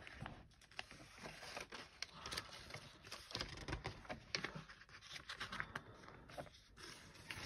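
Pages of a Hobonichi planner being leafed through by hand: a faint, irregular run of soft paper flicks and rustles.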